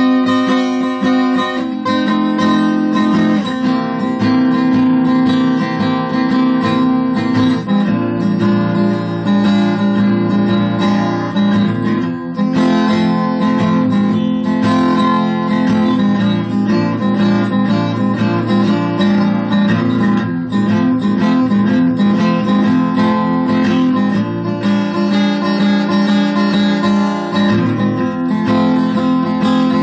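Guitar playing an instrumental blues piece: strummed and picked chords held for several seconds each, changing steadily.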